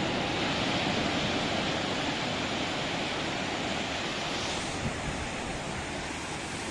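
Surf breaking on a sea beach: a steady rush of waves that eases slightly after about four seconds.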